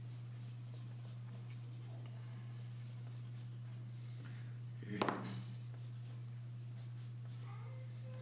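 Pencil sketching on paper: light scratchy strokes over a steady low hum, with one short louder noise about five seconds in.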